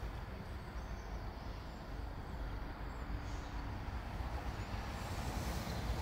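Wind buffeting the microphone: a steady, unsteady low rumble with a faint hiss.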